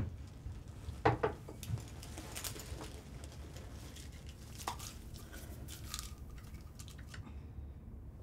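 Quiet handling sounds at a bathroom sink: small knocks, clicks and rustles as toiletries are picked up and set down, the sharpest knock about a second in, with a brief faint squeak near the end.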